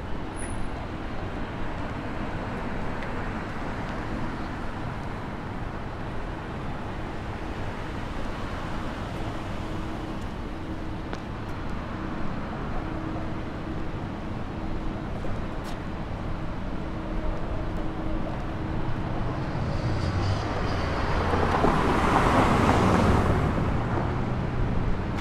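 City street traffic: a steady hum of cars, with one vehicle passing close by near the end, rising and then fading.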